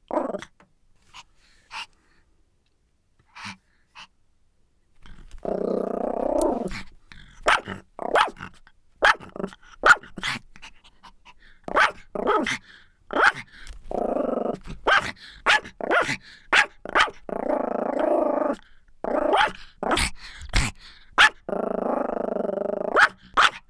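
Angry Pomeranian growling and barking: after a few seconds with only a few brief yips, it growls again and again in one- to two-second stretches, broken by sharp short barks.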